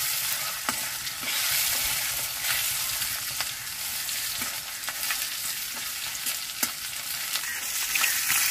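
Koi fish (climbing perch) sizzling steadily as they fry in mustard oil in a metal karahi, with a metal spatula tapping the pan a few times as the pieces are turned.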